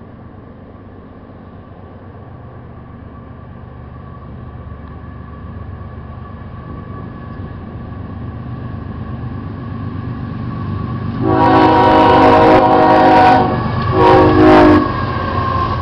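Union Pacific diesel locomotives approaching, their rumble growing steadily louder. The lead locomotive then sounds its air horn: one long blast of about two seconds, then a short one as it comes alongside.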